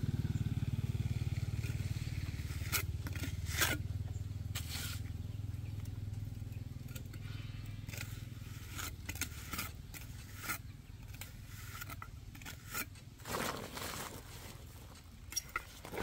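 Steel trowel scraping and tapping against stones and wet cement mortar while stones are bedded in mortar, in short scattered strokes with a longer scrape near the end. A low engine hum sits underneath and fades away over the first twelve seconds or so.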